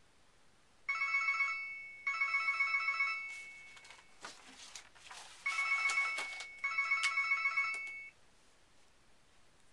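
Cellphone ringing: a trilling electronic ring tone in four bursts of about a second each, two together about a second in and two more after a short break. Clicks and rustling fill the break.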